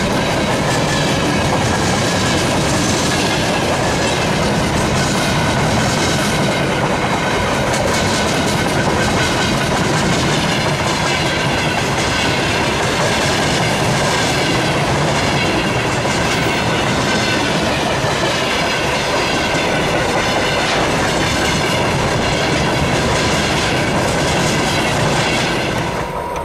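Freight train of covered hopper wagons rolling past close by: a steady loud rumble of wheels on rails, with a rhythmic clickety-clack over the rail joints and high steady metallic tones ringing over it.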